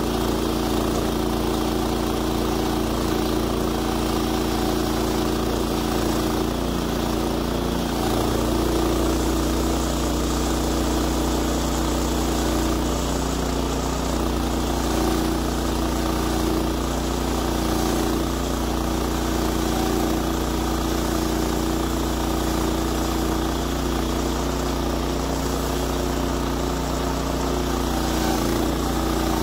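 Woodland Mills HM126 bandsaw mill's 14 hp gas engine running steadily as the mill head is pushed along a Douglas fir log, the band blade cutting through it.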